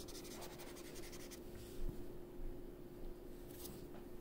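Felt-tip marker scribbling on paper in quick back-and-forth strokes. The strokes stop about a second and a half in, and a few more come near the end.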